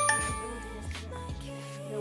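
Background music with steady held tones, opening with a bright ringing accent right at the start.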